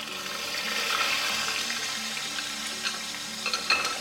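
Puréed tomato hitting hot oil and cumin seeds in a kadai, sizzling and spitting as soon as it goes in, with a few sharp clicks near the end.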